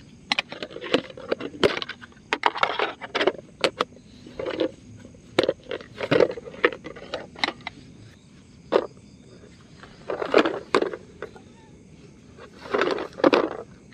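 Camping gear and cookware being handled: a string of irregular clinks, taps and knocks with bursts of rustling, over a faint steady chirring of night insects.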